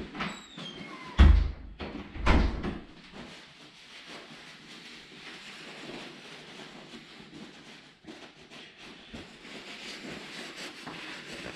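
Two loud thumps about a second apart near the start, then soft, steady rustling of a paper towel being rubbed over hands.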